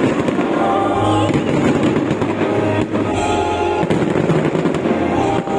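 Fireworks going off in several sharp bangs over music playing steadily.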